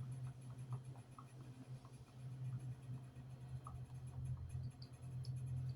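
Faint, light scratching and small ticks of seasoning being put on and worked into raw chicken pieces, over a steady low hum.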